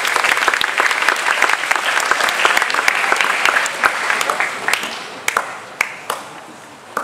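An audience applauding: dense clapping from many hands that thins out after about four and a half seconds to a few scattered claps.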